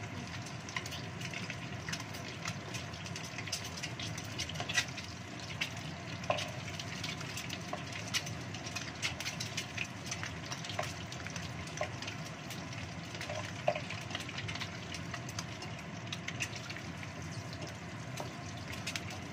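Peeled boiled quail eggs frying in hot oil in a wok: steady sizzling with frequent small crackles and pops.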